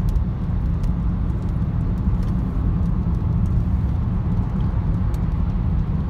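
Steady low road and engine rumble of a car at highway speed, heard from inside the cabin, with a few faint ticks.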